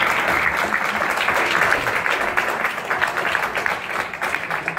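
Audience applauding: many hands clapping together, thinning slightly near the end.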